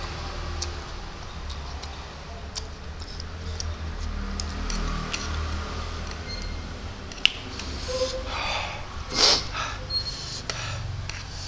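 Close-up eating sounds of spicy instant noodles: chewing and lip-smacking with many small clicks over a steady low hum. There is one sharp click about seven seconds in and a louder, breathy burst around nine seconds.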